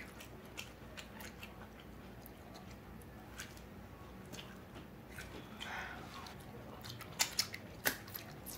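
Close-miked eating sounds: faint chewing and biting with small wet mouth clicks, which grow quicker and louder near the end.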